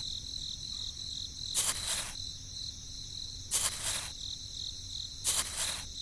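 Crickets chirping steadily in a high, pulsing drone. Three short rushing noise bursts, each about half a second long, come at roughly two-second intervals.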